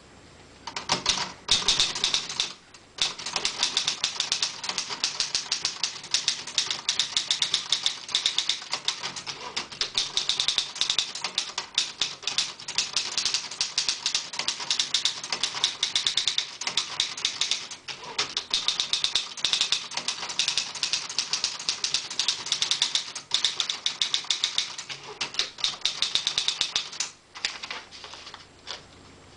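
Olivetti Lettera 22 manual portable typewriter being typed on quickly: a fast, continuous run of key and typebar strikes, with a short break about three seconds in and a stop near the end.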